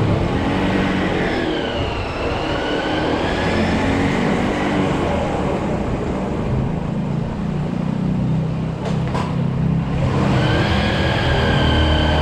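Small motorcycle engine running under way in traffic, its pitch shifting with the throttle. A horn sounds for several seconds from about a second in, and again near the end.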